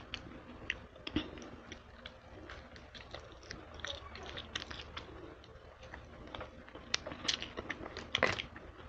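Close-miked chewing and biting of fried buffalo chicken wings: scattered small clicks and crunches, with a few louder crunches in the last two seconds.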